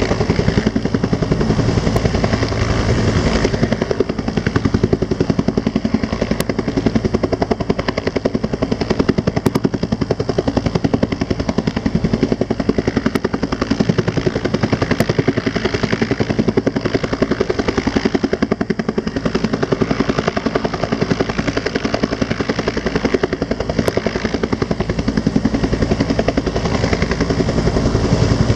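Rescue helicopter running close by, its rotor beating in a fast, steady chop.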